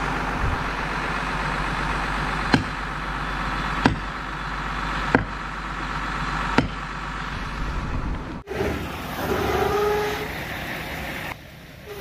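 Engine running steadily under four sharp knocks, evenly spaced a little over a second apart; near the end the engine sound gives way to quieter sounds.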